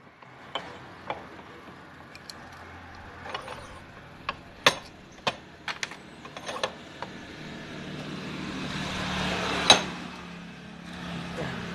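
Light metal clicks and clinks as a starter motor housing with its carbon brushes is handled and turned. In the second half a motor vehicle passes, its engine hum and tyre noise swelling to a peak and fading.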